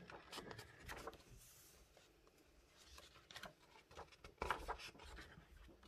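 Faint rustling and soft brushing of a large book's paper pages being handled and turned, in a few short bursts.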